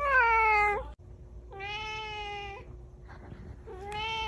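A cat meowing three times: a loud meow that falls in pitch, then a longer steady one, then a short one near the end.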